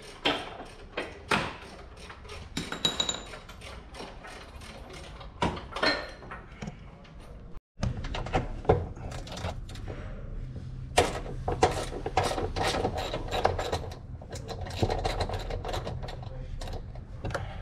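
Irregular clicks, knocks and clatter of hands and tools on fasteners and plastic trim as the underbody bash guard of a Ford Ranger Raptor is unbolted. The sound cuts out for a moment a little before halfway.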